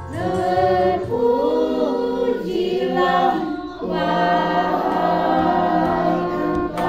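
A group of students and their teacher singing together without accompaniment, the melody gliding at first and then settling into long held notes.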